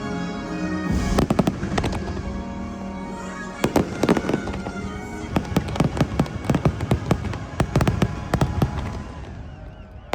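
Fireworks going off over the show's music, a first cluster of sharp bangs about a second in, then rapid volleys of cracks that thin out and fade near the end.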